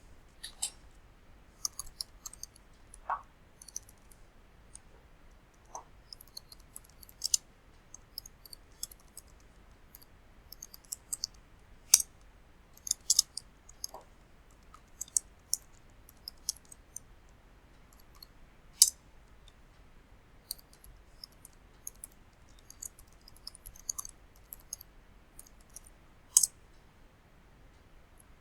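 Computer keyboard typing and clicking in scattered bursts of quiet, sharp key clicks, with a few louder single clicks now and then.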